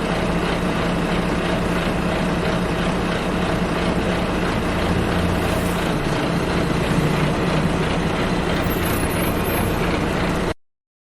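Inside a bus: the engine runs with a steady hum under a constant rumble of noise. It cuts off suddenly near the end.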